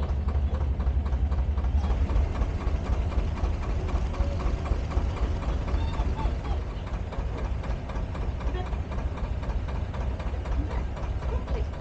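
Narrowboat diesel engine ticking over at idle, a steady low chug with a fast, even knocking beat.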